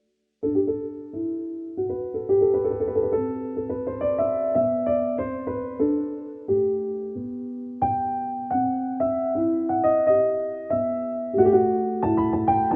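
Background piano music: a gentle melody of struck, ringing notes over a low bass, starting about half a second in after a brief silence.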